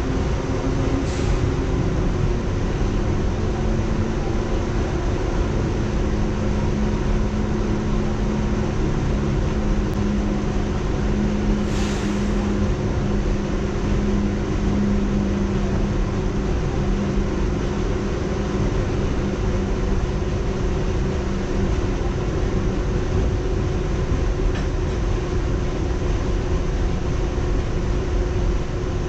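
R62A subway train running, heard from inside the car: a steady rumble of wheels on rail with a constant low hum. There are two brief hisses, about a second in and again about twelve seconds in.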